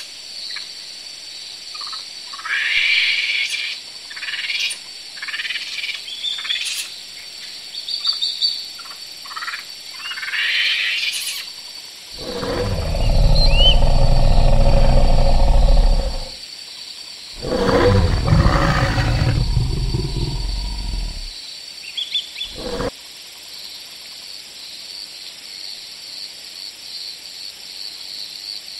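Monkeys calling: a run of short, high-pitched squeals and chirps, then two long, loud, low calls of about four seconds each, followed by faint chirps.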